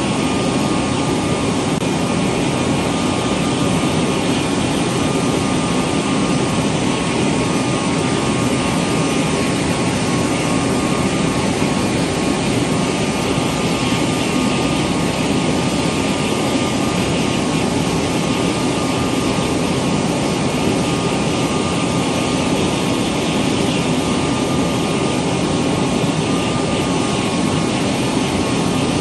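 Saab Gripen E fighter's GE F414G turbofan running steadily on the ground during an engine check: a loud, even jet rush with a steady high whine.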